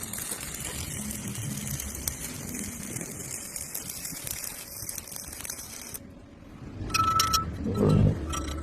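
Arc welding: a steady crackling hiss from the arc for about six seconds, then it stops. A few sharp metallic knocks and clanks follow near the end.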